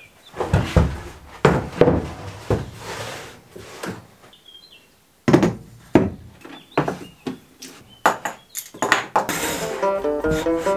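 Knocks and clatter of a large board and a solar charge controller being handled and set down on a wooden workbench. Banjo music comes in near the end.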